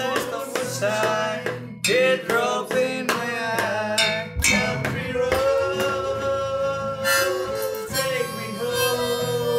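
Acoustic and electric guitars strumming a steady rhythm. From about five seconds in, a melody of long held notes plays over them.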